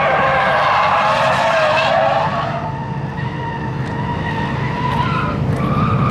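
A drift car on the course, its engine revving and its tires skidding as it slides. The sound falls away a little after about two seconds and builds again near the end.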